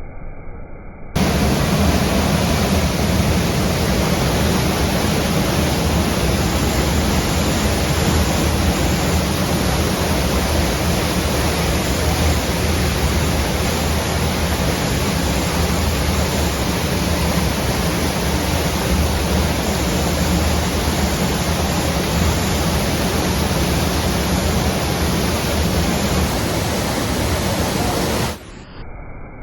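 Waterfall: water pouring down steadily as a loud, even rush with a deep low rumble under it. It starts abruptly about a second in and cuts off near the end.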